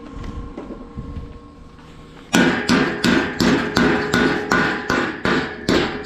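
Hammer blows on galvanized steel gate pipe, starting a little over two seconds in: a steady run of about three sharp, ringing metal strikes a second.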